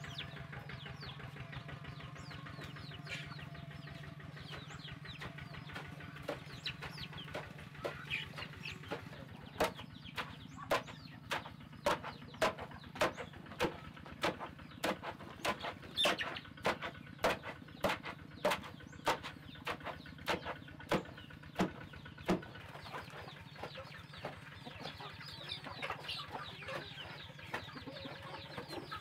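Long wooden pestle pounding shredded plant stalks in a hollow log mortar: a run of regular sharp thuds, about one or two a second, strongest through the middle stretch. Chickens cluck and chicks peep throughout.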